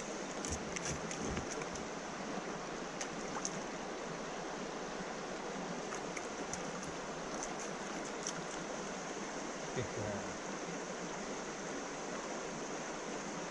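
Shallow river running over a rocky bed: a steady rush of water with small splashes and trickles ticking through it. There is a soft low thump about ten seconds in.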